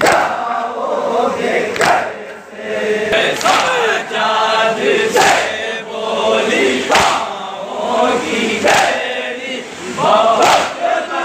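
A crowd of men chanting a noha (Shia lament) in unison while beating their chests together in matam. A loud slap of many hands on chests comes about every second and three-quarters, with the chant carrying on between the strikes.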